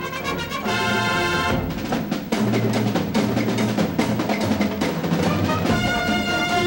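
High school band playing: held brass chords over drums, heard from an old audio cassette recording.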